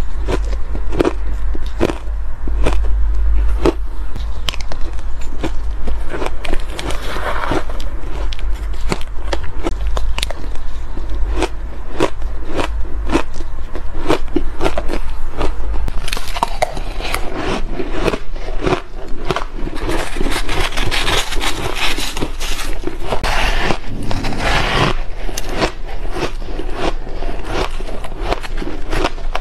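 Soft, powdery shaved ice being bitten and chewed close to the microphone, a rapid run of sharp crunches, with a metal spoon scraping through the ice in the bowl. About halfway through the crunching changes to a denser, hissier sound as a second, snow-like white ice is eaten.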